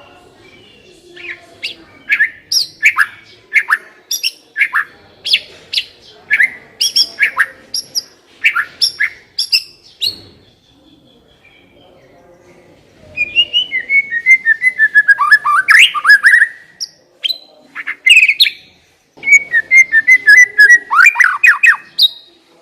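White-rumped shama (murai batu) singing: a run of loud, sharp whistled notes in the first half, a pause of a few seconds, then rapid chattering trills that fall in pitch.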